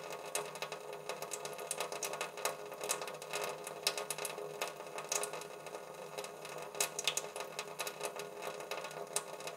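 A thin stream of water running from a tap into a sink, with many irregular splashing clicks over a faint steady hum.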